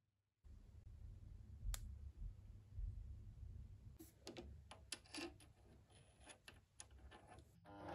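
Faint metallic clicks and taps of a steel rod being handled and fitted into the jaws of a lathe chuck: one sharp click about two seconds in, then a cluster of small clicks over the last few seconds, over a low hum.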